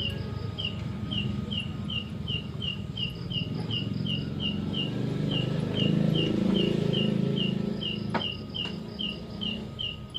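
An insect chirping steadily and high, about three short chirps a second, the unexplained night call that is puzzling the listener. Beneath it runs a low rumbling noise that swells in the middle, and a single sharp click comes near the end.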